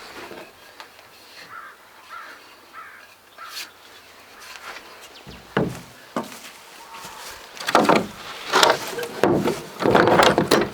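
Crows cawing about four times in the first few seconds, then wooden knocks and handling noises that grow into a cluster of loud strikes and scrapes over the last few seconds.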